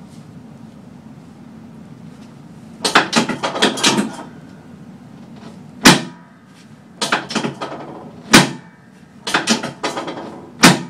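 Knocks and sharp clacks from a chiropractic hip adjustment on a treatment table: a flurry of knocks about three seconds in, then three single loud clacks a couple of seconds apart, each with smaller knocks around it, over a steady low hum.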